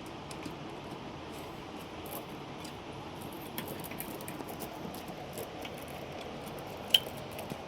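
Scattered small clicks and light taps of parts being handled inside a rack server's metal chassis, with one sharper click near the end, over a steady background hiss.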